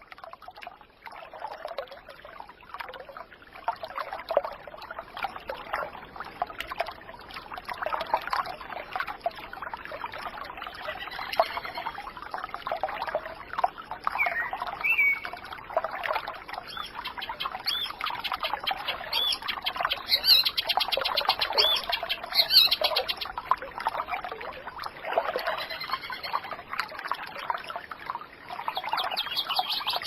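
Water trickling and gurgling, like a small stream, with occasional bird calls.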